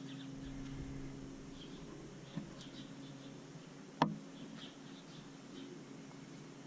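Steady low hum with faint, short high-pitched chirps scattered through it, a small click a little over two seconds in and one sharp click about four seconds in.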